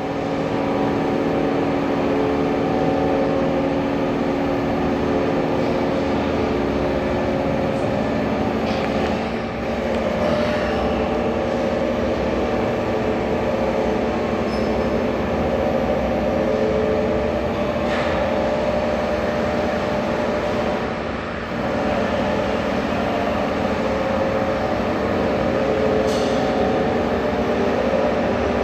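Pipe bending machine running with a steady mechanical hum, broken by a few short clicks or clanks.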